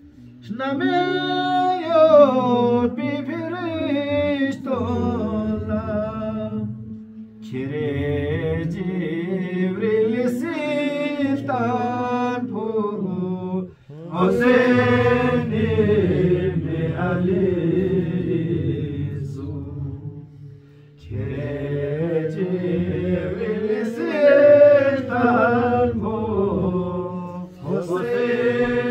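A man chanting a devotional qasida in praise of Imam Husain, unaccompanied, in long wavering melodic phrases broken by short pauses for breath about every seven seconds.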